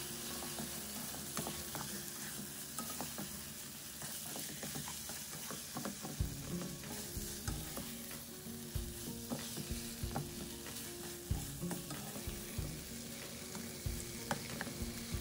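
Raw chicken pieces sizzling in oil and ground spice paste in a nonstick wok, with a spatula knocking and scraping against the pan now and then as the pieces are turned.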